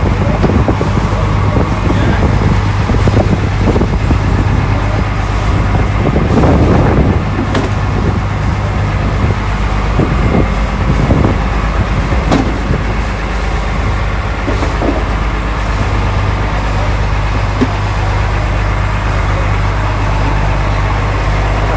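A boat's engine running steadily under way, giving a constant low drone.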